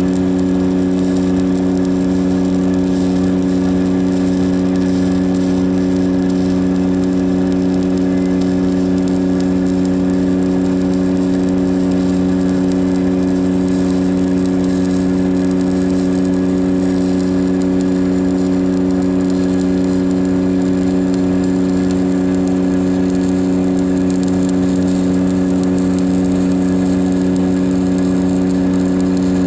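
Engine-driven welding rig running at a steady speed during continuous welding, an unchanging drone with no let-up.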